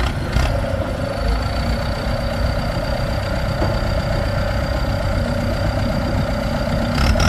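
Diesel engines of a bogged-down Ford 7610 turbo tractor and a CAT 313D2 excavator running steadily, with a thin steady high whine above the rumble. A rising whine starts near the end.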